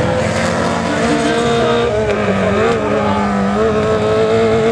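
Several autocross race car engines revving hard on a dirt track. Their pitches rise and fall as the cars accelerate and change gear.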